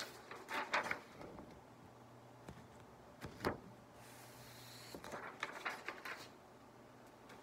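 Quiet handling noise: scattered soft clicks and rustles from hands moving and a sheet of paper held up close to the microphone, with a soft paper rustle about four seconds in, over a steady low room hum.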